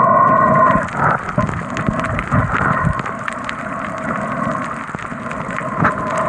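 Underwater sound picked up by a submerged camera while snorkeling: a dense crackle of small clicks over a muffled low rumble. A steady hum at the start fades out about a second in.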